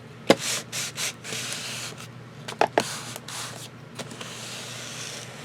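Glued cardstock being burnished flat, a dry rubbing over paper in strokes, with a sharp tap about a third of a second in and a quick pair of clicks past the halfway point as the paper is handled.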